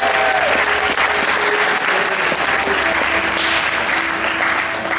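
Audience applauding steadily, with background music playing underneath.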